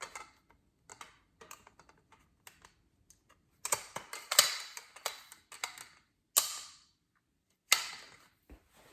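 Clicks, taps and rattles of backdrop stand poles being handled and fitted together, with a few louder knocks about four, six and a half, and eight seconds in.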